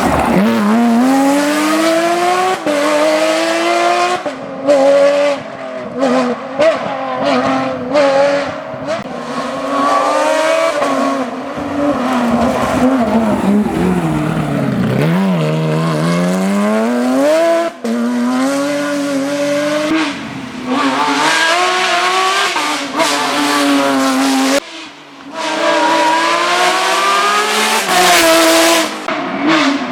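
Porsche 911 GT3 rally car's flat-six engine at full throttle: revs climb and fall back sharply again and again as it shifts up through the gears. About halfway through, the note falls deep and then climbs steadily again as it slows and accelerates hard. The sound cuts off abruptly a few times.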